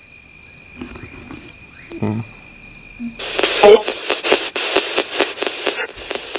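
Radio static from a spirit box sweeping through stations, starting about three seconds in as a loud hiss chopped by clicks about five times a second. Before it there is a faint steady high whine and a few brief, faint voice fragments.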